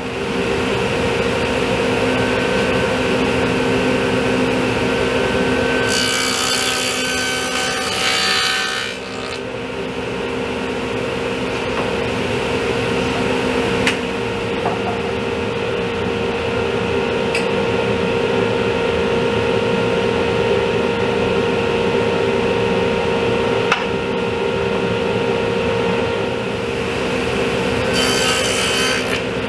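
Table saw running with a stacked dado blade, a steady motor whine throughout, with two passes cutting dados across a pine board: a longer cut about six to nine seconds in and a shorter one near the end.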